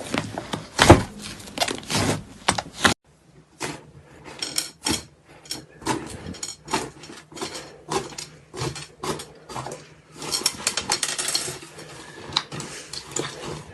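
Slime being squeezed, pressed and stretched by hand, giving a quick, irregular run of sticky clicks and pops. The sound breaks off sharply about three seconds in, then the clicking picks up again.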